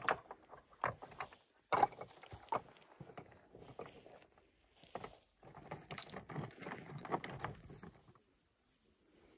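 Stones clacking and knocking against one another as they are set by hand on the top of a dry stone wall, in irregular sharp clicks that die away near the end.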